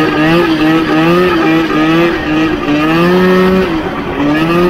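Polaris 488 two-stroke twin engine in a custom racing lawnmower, revving up and dropping back several times as the throttle is worked on and off.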